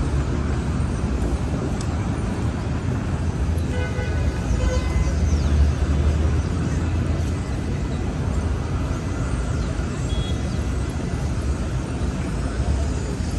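City street traffic: a steady low rumble of passing vehicles, swelling slightly about five seconds in, with a brief faint pitched tone around four seconds in.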